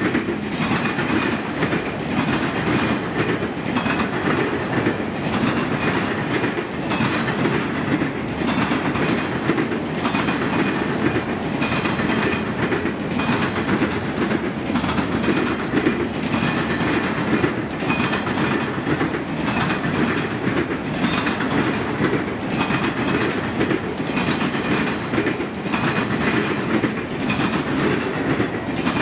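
Freight train of enclosed autorack cars rolling steadily past, its wheels clicking over the rail joints in a regular rhythm.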